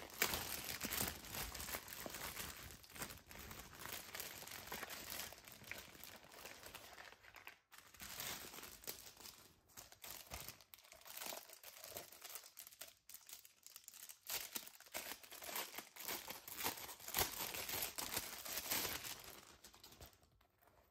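Clear plastic bag crinkling and rustling as it is handled and pulled off a pouch, in irregular bursts with a few brief pauses.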